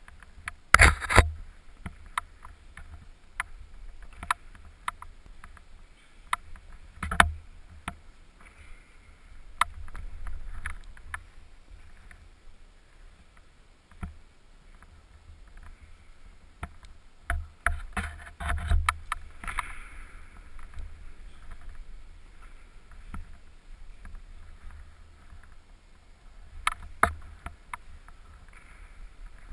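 Scattered knocks, taps and scuffs of a climber's hands and shoes on the holds and wall, picked up through a helmet-mounted GoPro's housing. The loudest clusters of knocks come about a second in, around seven seconds, at eighteen to nineteen seconds and near twenty-seven seconds.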